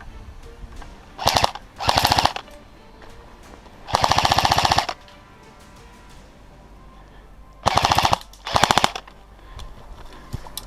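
Airsoft rifle firing on full auto in five short bursts of rapid clicking shots. The longest burst, about a second, comes about four seconds in.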